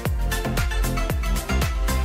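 Background music: an electronic track with a steady kick drum about twice a second under sustained chords.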